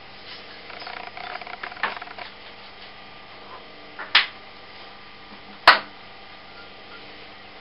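Metal workpiece and parts being handled on a shaper's vise: some scraping and light knocking, then two sharp metallic clinks about a second and a half apart, the second the louder.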